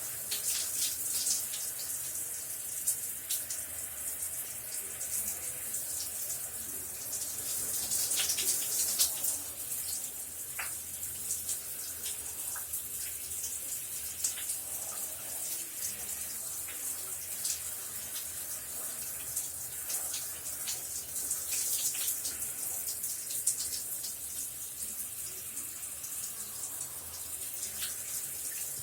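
Shower running steadily: a continuous hiss of falling water with frequent sharp splatters of drops hitting the surface.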